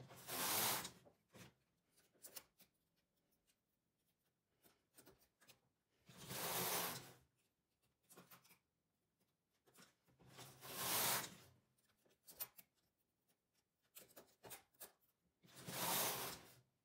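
Carriage of a midgauge (6 mm) knitting machine pushed across the needle bed four times, each pass a swish lasting about a second, with faint clicks in between.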